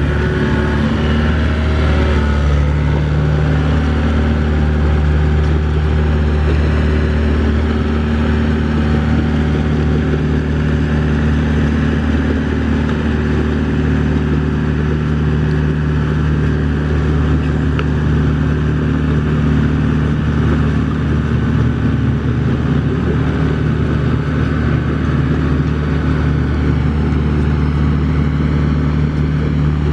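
Doosan DX55 mini excavator's diesel engine running steadily under working load, a continuous low engine note.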